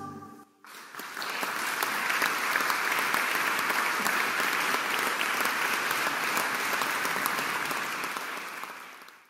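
An audience applauding. The clapping breaks out about a second in, just after the last chord of the choir and orchestra dies away, and fades out near the end.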